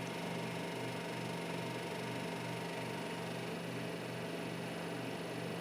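Steady low background hum with a faint regular pulse, about two a second, over light hiss; no distinct event.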